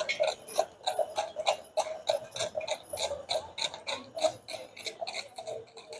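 Hooves of a pair of carriage horses clip-clopping on a paved street, a quick, even run of sharp clicks, about three to four a second, fading near the end.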